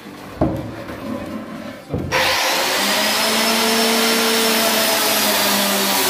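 A couple of knocks, then about two seconds in an electric woodworking power tool switches on and runs loudly and steadily, with a whine over its noise.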